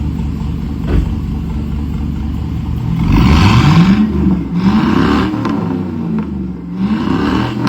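Chevrolet Silverado's 4.8-litre V8 idling steadily, then blipped three times, the engine note rising and falling with each rev.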